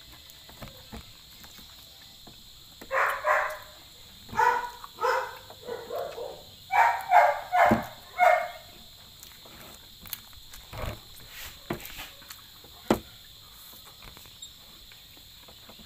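A run of about ten short, high-pitched animal calls in quick succession, a few seconds in. They are followed by a few sharp clicks and knocks from eating at the plate.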